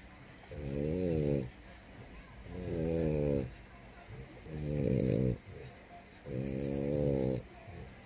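French bulldog snoring: four snores about two seconds apart, each about a second long.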